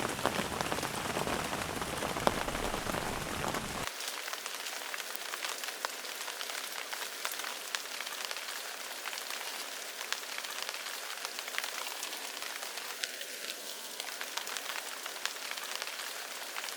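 Rain falling steadily, with many individual raindrops ticking. About four seconds in, the deep low rumble under the rain stops abruptly, leaving a lighter, thinner patter of drops.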